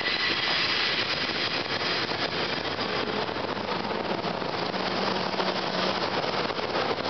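Steady rumbling and rattling of a San Francisco cable car in motion, heard from on board.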